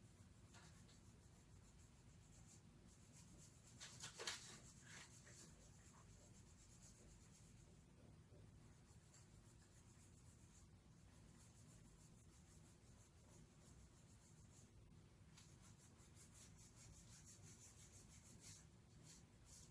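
Near silence: room tone with faint scratching and rustling, loudest in a short scratchy cluster about four seconds in.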